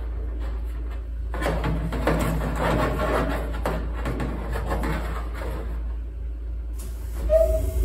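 A metal reinforcement ring being flexed and worked by hand into a round inspection hole in an aluminium wing skin, giving a few seconds of scraping and rattling metal over a steady low hum. Music starts near the end.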